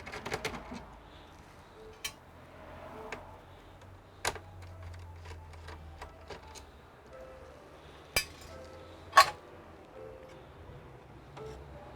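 Scattered clicks and clinks of small hard parts and tools being handled during computer disassembly, the sharpest about eight and nine seconds in, over faint background music.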